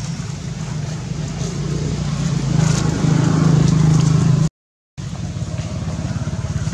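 A steady, low engine drone from a motor vehicle running, growing louder about halfway through. It breaks off into a half-second gap of silence before resuming.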